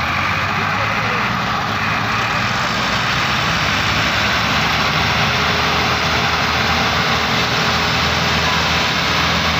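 Several tractor diesel engines running hard together under heavy load as they strain to pull a stuck, heavily loaded sugarcane trolley. A steady, loud engine din that does not let up.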